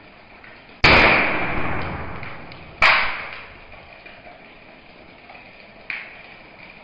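Match-firing toy gun made from a ballpoint pen going off: two sharp pops about two seconds apart, each followed by a hiss that fades over a second or so as the match head flares, and a smaller pop near the end.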